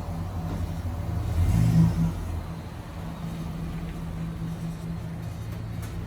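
A motor vehicle's engine running steadily at low pitch, swelling briefly as if revved about a second and a half in.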